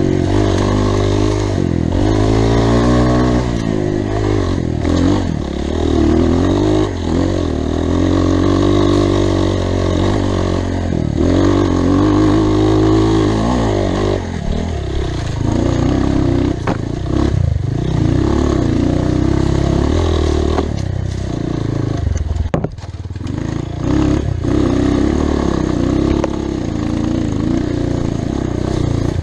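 Off-road motorcycle engine running on a trail, its pitch rising and falling again and again as the throttle opens and closes.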